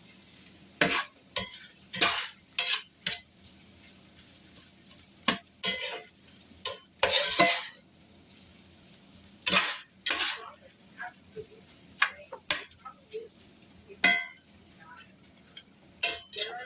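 Fried rice being stirred in a hot pan: a utensil scraping and clanking against the pan at irregular intervals over a steady sizzle.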